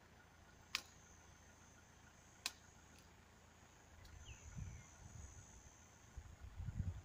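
Faint background with two sharp clicks about a second and a half apart, then a brief faint falling whistle and irregular low rumbling noise from about four seconds in.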